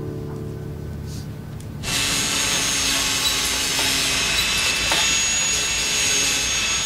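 Soft guitar music fades out, and about two seconds in an angle grinder starts up on metal: a loud, steady hiss with a high whine that runs on without a break.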